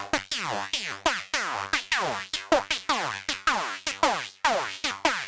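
High-pitched full-on psytrance lead played on the reFX Vanguard software synthesizer: a fast run of bright notes, about four a second, each dropping steeply in pitch from its pitch modulation. The run cuts off abruptly at the end.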